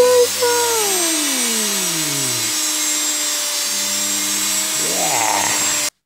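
Washing machine universal motor running with a steady high hiss. Its pitch falls over the first couple of seconds as it slows, then rises again near the end as it speeds up, and the sound cuts off suddenly.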